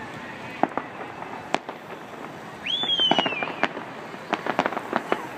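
Fireworks going off: a few separate sharp bangs, then about three seconds in a whistle that rises and then slides down in pitch, followed by a quick run of crackling cracks.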